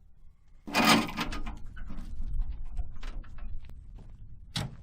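A heavy clunk about a second in, followed by a run of lighter rattling knocks, and a single sharp knock near the end.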